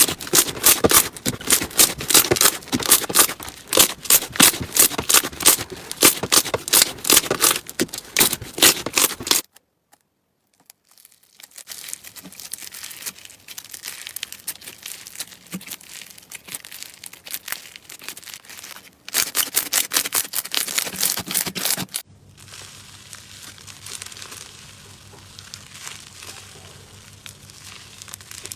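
Slime being handled in several short clips, making rapid crackling and popping: dense and loud for the first nine seconds, then, after a brief silent gap, softer with a louder burst of crackles a little past the middle.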